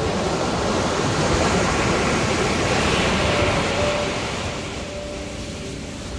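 Ocean surf breaking and washing up a sandy beach close by: a loud, rushing wash that swells about halfway through and eases off toward the end.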